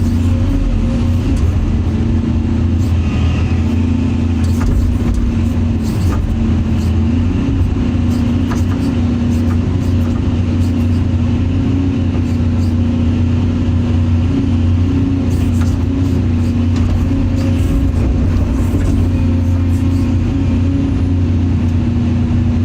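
Caterpillar excavator's diesel engine running steadily under load while digging clay, a constant low drone with a few faint clicks.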